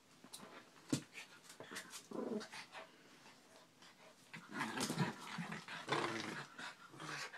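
Two small dogs play-fighting, growling in bouts that are loudest from about four and a half seconds in, with a sharp knock about a second in.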